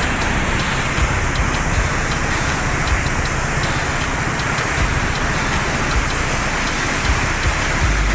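Water flowing in a steady, loud rush through a river barrage.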